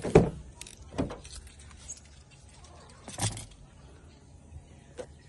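Four separate thumps over a faint background, the first, right at the start, the loudest.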